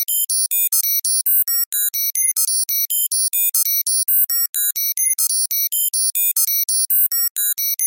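Synthesized computer-processing beeps: a rapid run of short, high electronic tones jumping between random pitches, about six a second, like a sci-fi computer crunching data.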